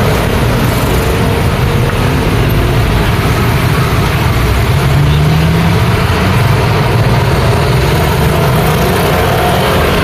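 Busy street traffic: a steady mix of motor scooter engines and truck and pickup engines passing close by, with no single vehicle standing out.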